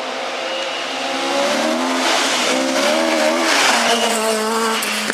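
Rally car engine revving hard as the car approaches at speed and passes close by, its pitch rising and falling with the throttle and growing louder, loudest about four seconds in.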